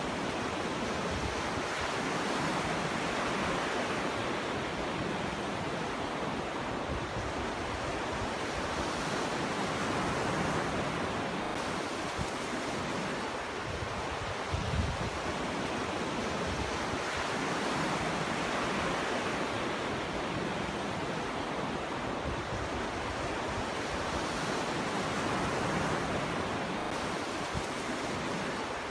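Ocean waves breaking and washing up on a beach shore, a continuous surf wash that swells and eases every few seconds, with a low thud of a wave breaking about halfway through.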